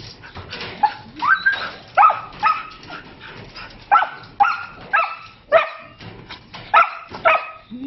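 Husky puppy barking repeatedly: about ten short, high-pitched barks, often in quick pairs.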